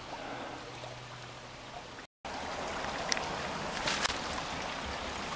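Creek water running steadily. The sound cuts out for an instant about two seconds in, and afterwards light crunches and rustles of footsteps through dry leaves and brush join the water.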